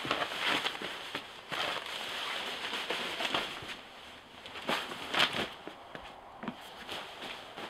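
Rustling and crinkling of a sleeping bag being handled and spread out over a foam mat, with scuffs and knocks of footsteps on wooden decking; the sharpest crackle comes about five seconds in.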